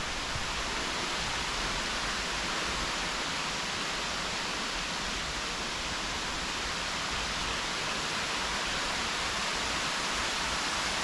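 Steady, even rushing of the Kelly's Falls waterfall, with no breaks or changes.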